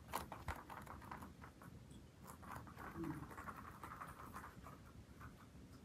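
Soft, scattered ticks and taps of a Bichon Frise's claws on a vinyl floor as the dog walks about, with a sharper tap at the very start.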